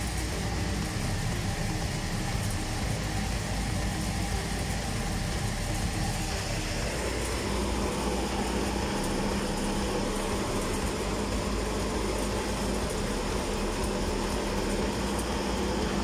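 Duct exhaust fan running steadily at full speed, a constant rush of air with a machine hum. About seven seconds in, a steady low tone becomes prominent. The fan stays at full speed even though its speed controller has just been turned down to minimum.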